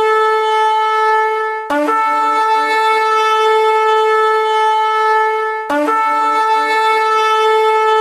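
A horn sounding long, steady blasts at one pitch, each held about four seconds, with a fresh blast starting just under two seconds in and again near six seconds.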